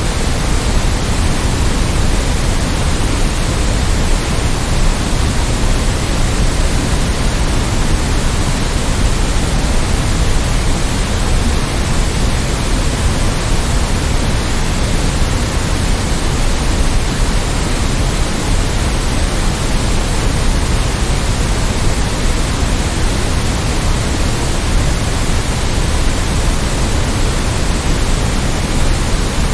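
Steady white noise: an even, unchanging hiss across the whole range, a little fuller in the low end.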